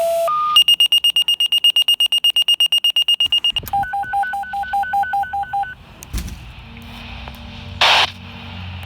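Fire department pager activation: the end of a two-tone page, a steady tone that steps up in pitch, then the pager's alert of fast, even high beeps, about ten a second for some three seconds, followed by about two seconds of beeps alternating between two pitches. Afterwards a low hum, with a thump about six seconds in and a short burst of noise near the end.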